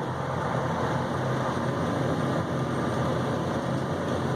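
Walk-in cooler evaporator fans running, a steady rush of air with a low hum underneath.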